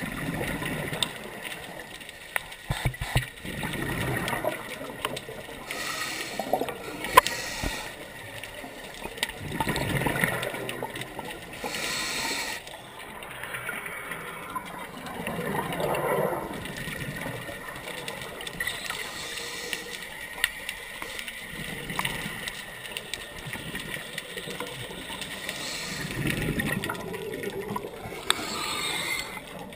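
Scuba regulator exhaust bubbles gurgling, heard underwater. The bubbling surges and fades every few seconds with each breath, with a few sharp clicks among it.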